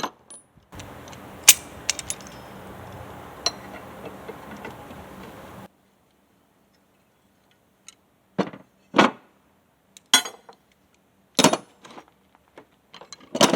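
Steel parts being handled by hand: a few sharp clicks over a steady background hiss that cuts off suddenly. Then about five separate metallic knocks and clinks, a second or so apart, as bolts are started into the steel mounting plates.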